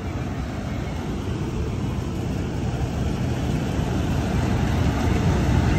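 Kartar Crop Cruiser combine harvester running as it cuts ripe paddy: a steady low drone of engine and threshing gear that grows gradually louder as the machine comes closer.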